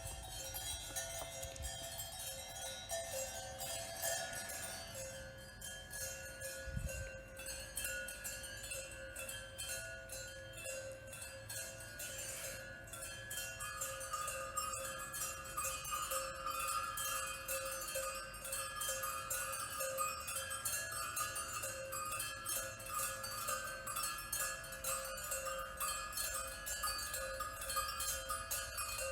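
Bell-like ringing tones over rapid, dense metallic tinkling, growing busier about halfway through.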